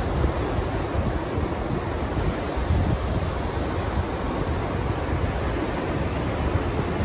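Ocean surf washing in steadily, with wind buffeting the microphone and adding a low rumble.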